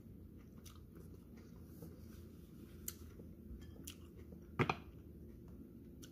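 A woman chewing a mouthful of home-made keto pizza close to the microphone: soft mouth clicks with a louder double click about four and a half seconds in.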